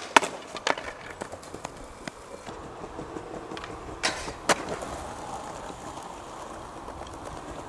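Skateboard wheels rolling on concrete, with a series of sharp board clacks; the two loudest come about four seconds in, half a second apart.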